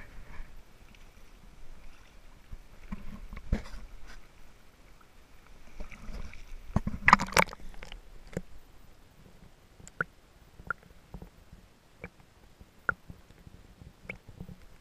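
Creek water sloshing and gurgling around a camera held just under the surface while a brown trout is released by hand. The sound is muffled, with irregular knocks and a louder stretch of splashing about seven seconds in, then scattered sharp clicks.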